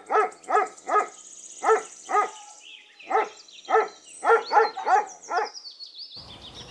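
Dog barking: about a dozen short, sharp barks in uneven clusters, stopping about six seconds in.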